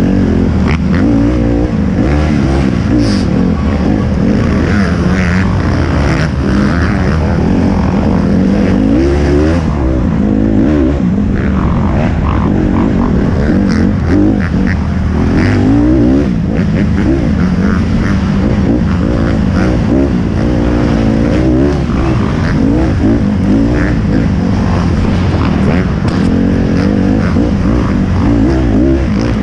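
Off-road dirt bike engine heard close up from the bike being ridden, revving up and down over and over as the throttle is worked, its pitch rising and falling with each change.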